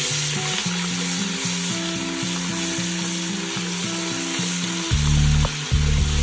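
Sliced onions and garlic paste sizzling in hot oil in a pot while being stirred with a slotted spatula. Background music with a melody of held notes plays along, with a deep bass that comes in strongly about five seconds in.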